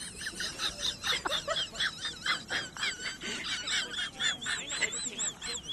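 Birds chirping: many rapid, high-pitched arched calls overlapping.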